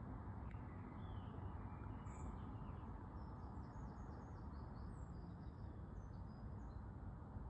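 Faint, scattered bird chirps over a steady low background rumble, the chirps thickest in the middle of the stretch.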